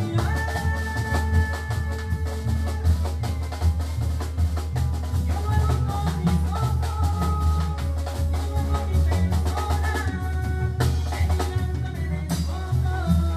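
Live band music: electronic keyboard melody and held chords over a drum kit's steady beat and heavy bass.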